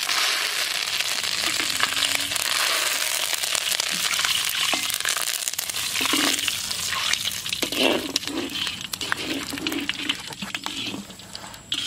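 Curry leaves sizzling and crackling in hot oil in an iron kadai, starting sharply as they drop in and dying down near the end.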